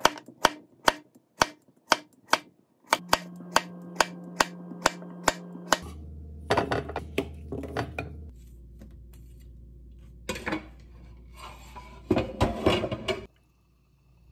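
A knife slicing through a cucumber onto a wooden cutting board: a steady run of sharp chops, about two a second at first and quickening to about four a second, for some six seconds. Then several bursts of scraping and clatter as the cut slices are swept off the board onto a plate.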